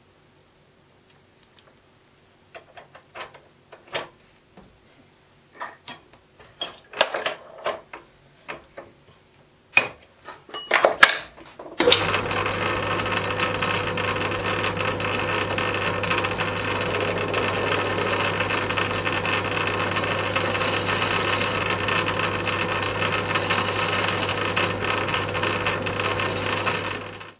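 Irregular metallic clicks and knocks as a cast wheel is handled and fitted into a lathe's collet chuck. About twelve seconds in, the metal lathe starts and runs steadily with a low hum while the tool turns the wheel's profile, then cuts off suddenly near the end.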